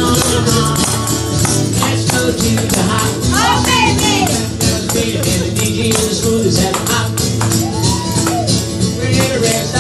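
Upbeat music with several tambourines shaken and struck along to the beat, and voices singing along.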